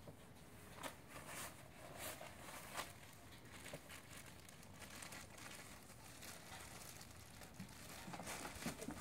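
Faint, scattered crinkling of a plastic treat bag being handled.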